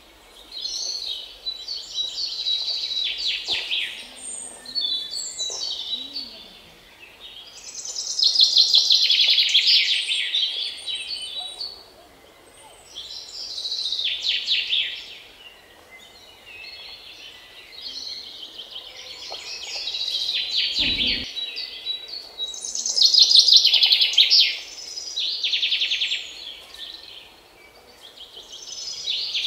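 Birdsong: bursts of fast, high chirping trills every few seconds, loudest about eight seconds in and again near twenty-three seconds.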